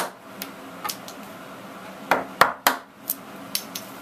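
Mallet striking a chisel to chop out the waste wood of a rabbet joint: a series of sharp knocks, the loudest three close together a little past halfway, with lighter taps around them.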